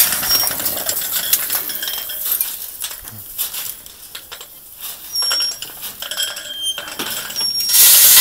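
Gravel and small rocks clinking and rattling against the metal scoops and chutes of a playground bucket elevator, with scattered clicks throughout and a louder rush of rattling near the end.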